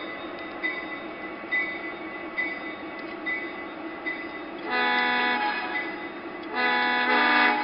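O gauge model train running on the track, a steady rumble with faint clicks about once a second. The locomotive's sound system gives two horn blasts about two seconds apart, the second longer and louder.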